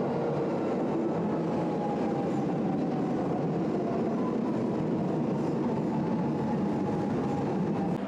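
Lisbon Metro train pulling into an underground station platform: a steady rumble of the cars rolling past, with a faint whine that slowly falls in pitch as the train slows. It cuts off abruptly near the end.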